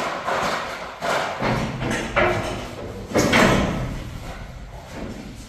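Irregular knocks and clattering as a rolled steel roll-up garage door is carried up stepladders and lifted onto its brackets. The loudest knock comes about three seconds in and rings on in the empty metal building.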